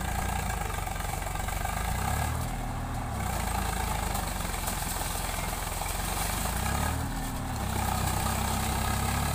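Swaraj 855 FE 4WD tractor's three-cylinder diesel engine running under load as the tractor drives through deep mud. The revs rise and drop back twice, about two seconds in and again about seven seconds in.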